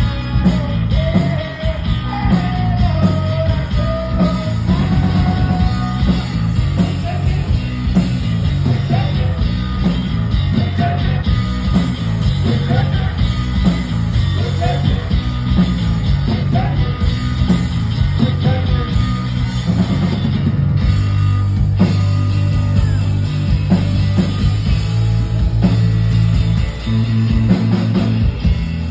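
Live rock band playing: electric guitar lead over bass guitar and drums. About two-thirds of the way through, the wavering lead lines give way to steady chords.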